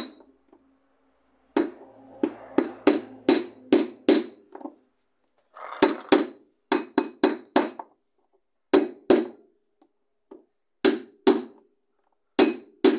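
Metal bar used as a hammer, striking a fitting on a plastic ride-on swing car: about twenty blows in quick runs of three to six, with short pauses between runs, each blow ringing briefly.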